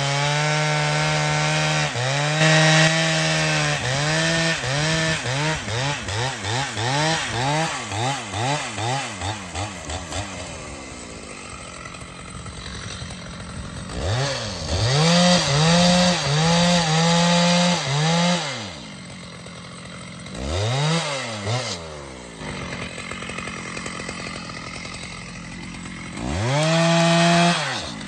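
Chainsaw revving up and down over and over, about once a second at first, then held at high speed for a few seconds at a time, with quieter idling between.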